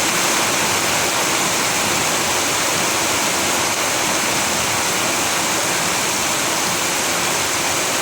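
Steady rain falling: an even, unbroken hiss with no separate drops or other sounds standing out.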